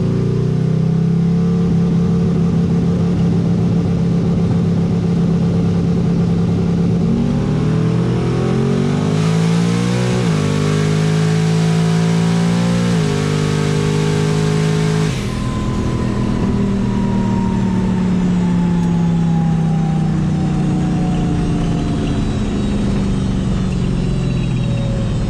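Turbocharged 4.8-litre LS V8 in a drag-racing S10 pickup accelerating hard down the strip: the revs climb in steps through two gear changes, loud with exhaust and rushing noise. About fifteen seconds in the driver lifts, and the engine winds down while a high whine slowly falls in pitch.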